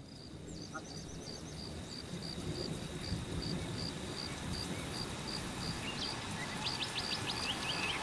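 Amazon rainforest ambience fading in: a steady haze of noise growing louder, with an insect chirping in an even pulse about twice a second and a run of quick high chirps near the end.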